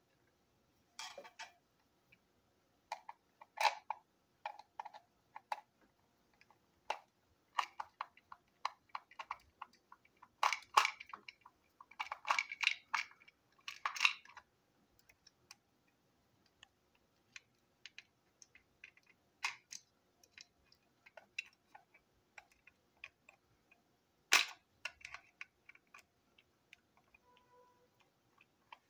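Small plastic and metal parts of a toy chassis clicking and tapping as they are handled and fitted together by hand, in irregular bursts with pauses between them.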